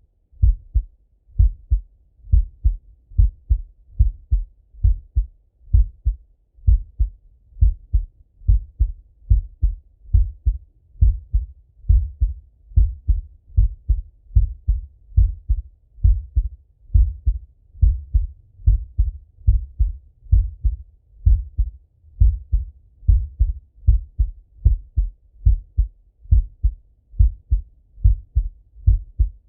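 A man's heartbeat heard through a Littmann stethoscope: steady, regular lub-dub pairs of low, dull thuds.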